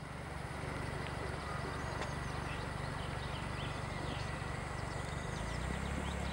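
Outdoor street ambience: birds chirping over a steady hiss and low rumble.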